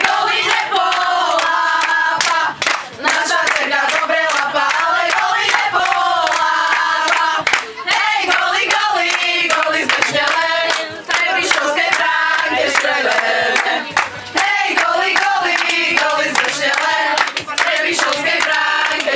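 A group of girls singing a chant together, clapping their hands along to it.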